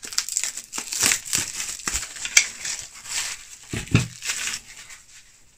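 Plastic cling film crinkling and rustling as a wrapped plastic frame part is unwrapped and handled, with a couple of knocks as a part is set down.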